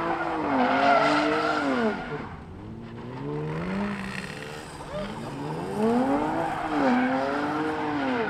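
Dodge Charger's engine revving hard in rising and falling surges while its rear tires spin through donuts, with tire squeal throughout.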